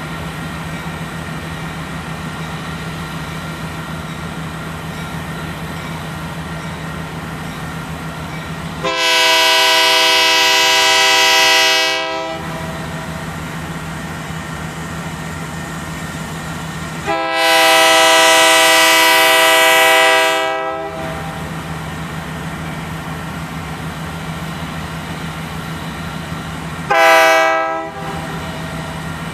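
Union Pacific freight locomotive's air horn blowing the grade-crossing signal as the train approaches a crossing: two long blasts, then a short one near the end, the opening of the standard long-long-short-long sequence. The blasts sound over a steady low rumble.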